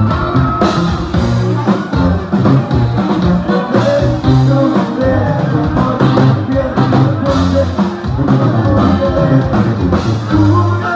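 Live Mexican regional band playing loudly from the stage: a bass line stepping from note to note under guitar and a steady beat, with some singing over it.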